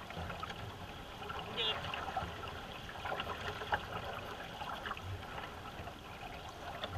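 Racing canoe under way with a paddle dipping and pulling through the water in a soft repeating rhythm, and water trickling along the hull. A short, high warbling trill comes about a second and a half in.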